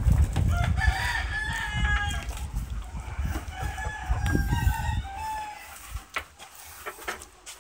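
Dutch white-crested (Polish) rooster crowing twice, one crow right after the other, over a low rumble; a few light knocks near the end.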